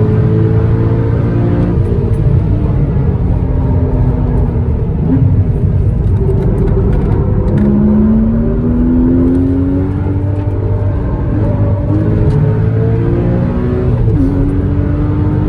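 Porsche Cayman S 981's 3.4-litre flat-six engine under hard acceleration. Its pitch climbs through the revs and falls back sharply at each gear change, several times, over a steady low rumble.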